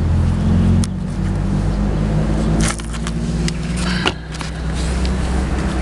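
Motor vehicle engine running steadily at idle, with a few short clatters about one, three and four seconds in.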